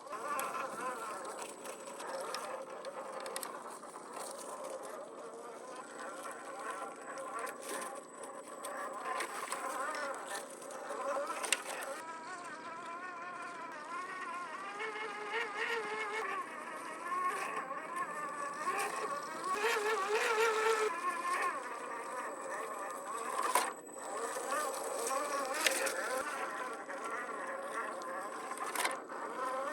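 Electric drive motor and gearbox of a 1/10-scale RC crawler truck whining as it is driven over obstacles, the pitch rising and falling with the throttle. A few sharp knocks come in between, the clearest about 11, 23, 25 and 29 seconds in.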